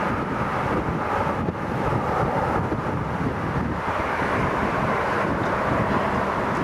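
Airbus A330-343 jet engines (Rolls-Royce Trent 700) heard across the airfield as the airliner moves down the runway, a steady rushing rumble. Wind buffets the microphone throughout.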